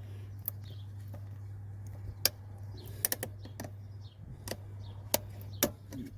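Scattered sharp clicks and taps of a hand tool working on plastic and metal parts in a van's engine bay during a thermostat change, over a steady low hum.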